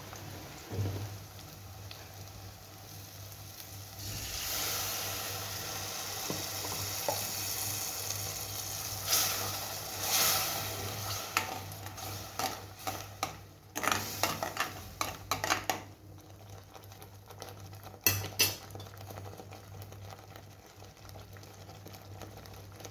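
Masala with red chilli powder frying in hot oil in a pan, the sizzling swelling about four seconds in, while a spatula stirs and scrapes the pan in a string of sharp clicks through the middle. A steady low hum runs underneath.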